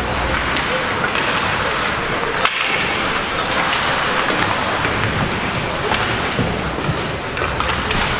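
Ice hockey play: a steady scraping hiss of skates on the ice, with sharp clacks of sticks and puck, one louder crack about two and a half seconds in.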